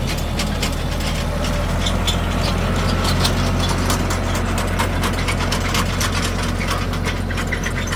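Kioti NS6010 compact tractor's diesel engine running steadily under load in the field, with a dense irregular clatter of clicks and rattles over it.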